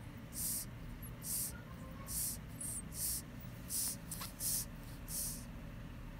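Newborn baby breathing quickly and evenly through his nose, a short soft hiss about once a second; his nose has sounded a little stuffed up.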